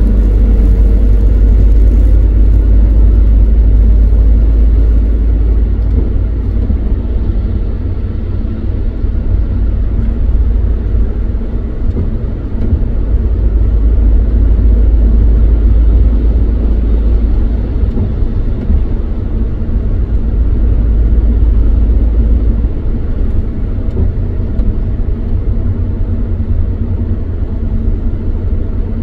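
Steady low rumble of a moving vehicle's engine and tyres on a wet motorway, heard from inside the cab.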